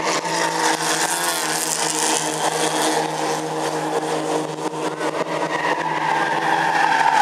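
Race car engine running hard at speed as a sedan race car passes along the circuit, a steady engine note that holds its pitch.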